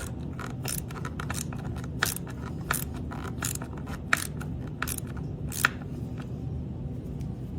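Hand ratchet clicking while driving a bolt: sharp metallic clicks every half second to a second, stopping about six seconds in, over a low steady hum.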